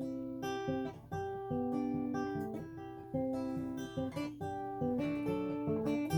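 Acoustic guitar playing the song's intro, notes picked one after another in a steady, even pattern.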